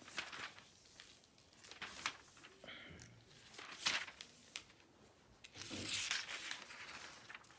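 Soft rustling and handling of paper pages, with a few light clicks and a longer rustle about six seconds in.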